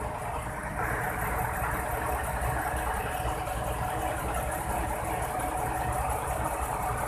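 Tow truck's engine running steadily, growing louder about a second in.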